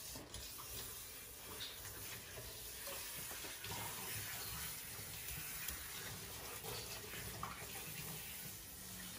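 Water running steadily from a kitchen sink's pull-out sprayer, spraying over a monkey and pouring into the sink as it is rinsed.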